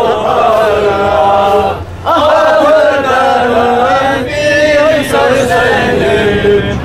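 A group of young men loudly chanting a national song together in unison, with a short break for breath about two seconds in.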